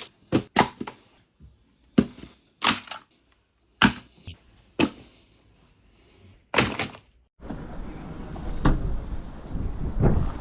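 A series of about eight sharp cracks and knocks, irregularly spaced over the first seven seconds with silence between them. A steady rushing background noise then sets in, carrying a couple of fainter clicks.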